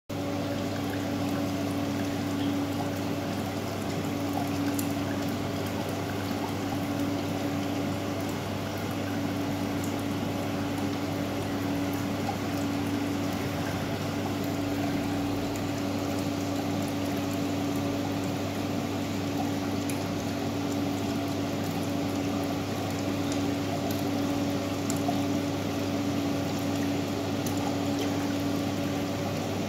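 Reef aquarium equipment running: a steady electric hum from the water pumps under a constant rush of moving, splashing water.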